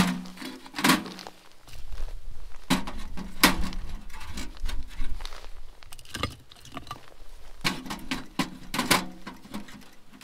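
Split firewood knocking against the metal walls and grate of a small tent wood stove as pieces are loaded into the firebox. There are several separate knocks, some with a short metallic ring, and a quick cluster of them near the end.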